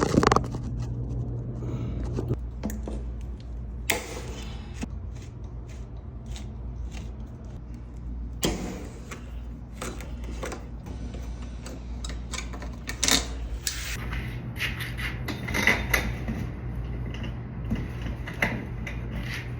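Scattered light clicks, taps and knocks of hand handling, such as keys or tools, over a steady low hum.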